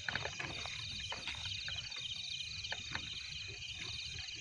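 Crickets chirping in a steady night chorus of rapid pulsed trills, with scattered crackles from footsteps through dry grass.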